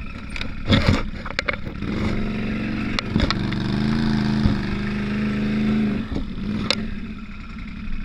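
Can-Am Outlander 850 XMR ATV's V-twin engine running, picking up in pitch a couple of seconds in and holding steady under throttle for about four seconds before easing off. A few sharp clicks come through along the way.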